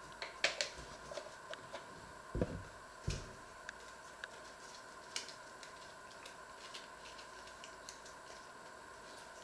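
Kitchen handling sounds: a few soft knocks in the first three seconds, then sparse light clicks and ticks as a small item is handled in the fingers, over a faint steady hum.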